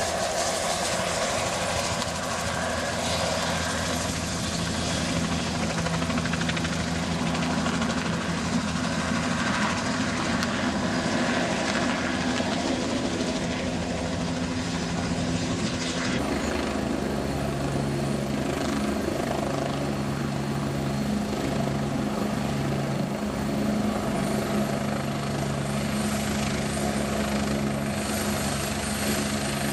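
Helicopter running, a steady whine and beat of turbine and rotor; its pitch shifts abruptly about halfway through.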